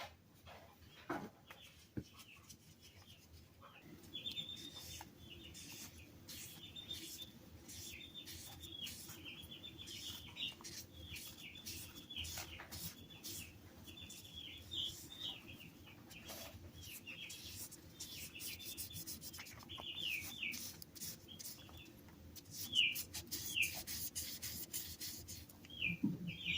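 Steady hand rubbing on the wooden knob of a hand plane, polishing its new finish, starting about four seconds in. Short chirps repeat throughout, about one a second.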